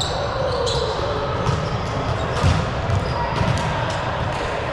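Balls thudding and bouncing on a gym floor, with short shoe squeaks and voices in an echoing sports hall.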